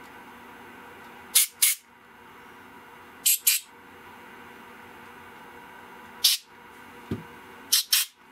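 Short blasts of compressed air from an air-hose blow gun, shot through the passages of a dirty snowmobile carburetor to clear them: seven quick hisses, mostly in pairs, with a light tap shortly before the last pair.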